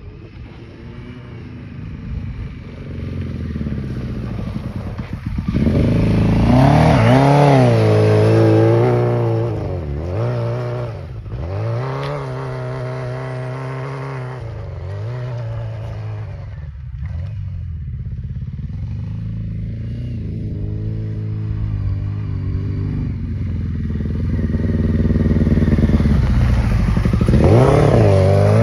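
Yamaha FZR600's inline-four engine revving up and down in pitch as the bike rides over snow, with two loud peaks, the second near the end as the bike comes up close.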